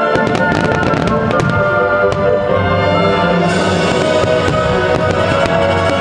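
A fireworks finale: a rapid run of aerial shell bursts and crackling, starting suddenly right at the start and coming thick and fast, over loud music with sustained notes.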